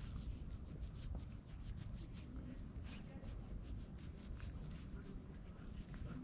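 A cat's rough tongue rasping as it licks a person's fingers: a run of quick, irregular scratchy licks over a steady low rumble.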